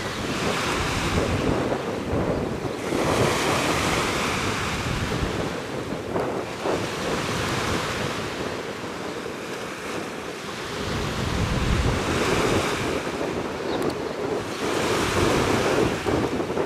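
Wind blowing over the microphone in gusts, swelling and easing several times with low rumbling buffets.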